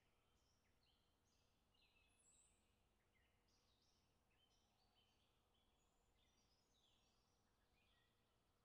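Near silence, with many faint, short, high chirps scattered throughout.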